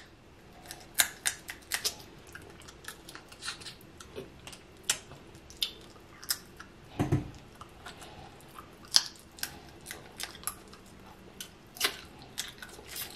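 Close-up eating of snow crab legs: irregular sharp clicks and cracks of crab shell being broken and of smacking, chewing mouth sounds, with one duller, lower sound about seven seconds in.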